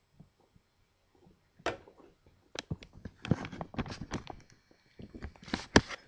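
Drinking from a metal can: a run of short gulping clicks and small knocks, coming in clusters through the middle few seconds and again near the end.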